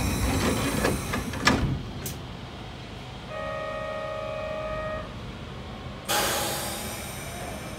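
Hokusei Line narrow-gauge train's horn sounding one steady note for under two seconds, after a stretch of train rattle and clicks. About six seconds in a sudden hissing noise starts and slowly fades.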